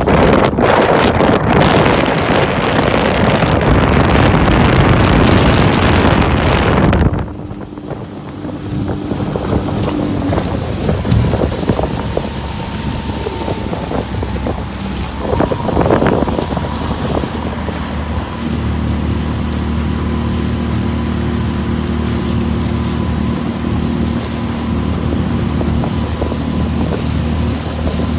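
Honda 30 hp four-stroke outboard motor running steadily under way, with water rushing past the hull. Loud wind rush on the microphone covers it for about the first seven seconds, then the engine's steady hum comes through plainly, its tone shifting slightly about eighteen seconds in.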